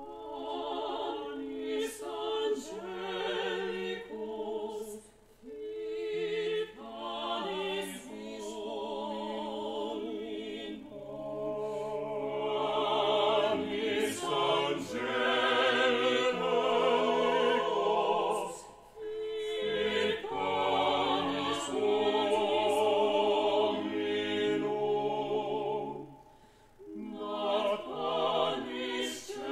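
Small mixed vocal ensemble singing a cappella, several voices in harmony with vibrato, in phrases separated by short breaths, the longest breaks about five seconds in, near the middle, and a few seconds before the end.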